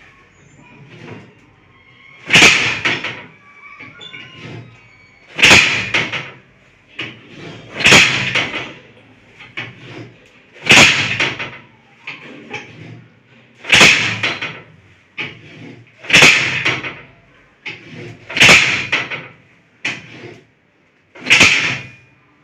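Loud thumps from a chiropractic adjustment on a patient's lower back: eight sharp impacts, one about every two and a half to three seconds, each trailing off briefly, with lighter knocks in between.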